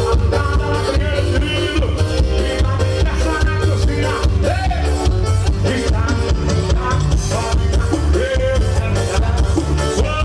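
Forró music played by a band, with a steady, quick beat of about four strokes a second over heavy bass, and a voice singing a bending melody.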